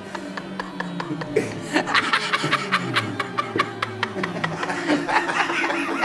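A man laughing and chuckling over music with a fast, even ticking beat and a low pitched line underneath; the laughter sets in about a second and a half in.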